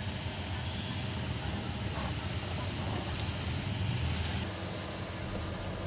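A steady low engine-like hum runs throughout, with a few faint clicks as a spark plug is screwed in and tightened by hand tool.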